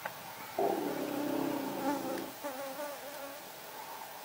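An insect buzzing close to the microphone. It comes in loud about half a second in, wavers in pitch as it moves, and fades away after about three seconds.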